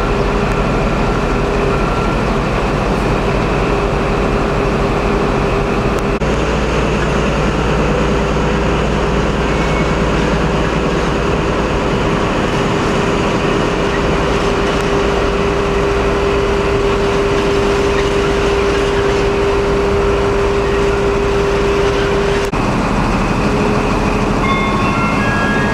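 InterCity 125 (HST) diesel power car running at a station platform: a loud, steady engine sound, with a steady whine held through the middle.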